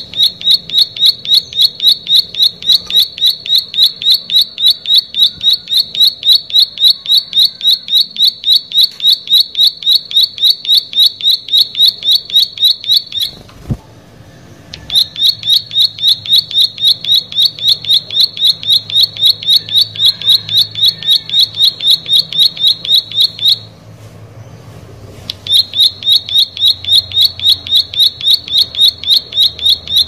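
Plain prinia (prenjak sawah) singing: a fast, steady string of identical high notes, about three a second, broken by two short pauses, one just before halfway and one about three-quarters of the way in.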